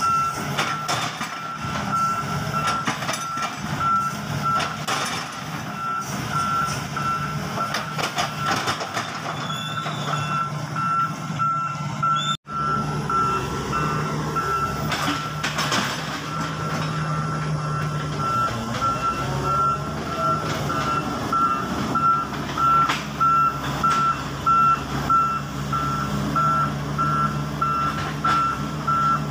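Volvo EW145B wheeled excavator's warning alarm beeping in a steady train of evenly spaced high-pitched beeps, over the steady hum of the machine's diesel engine running.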